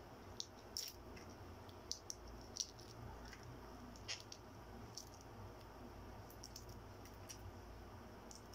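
Faint, irregular small clicks and crackles of a balut egg being peeled by hand and eaten, with a few sharper ones in the first three seconds.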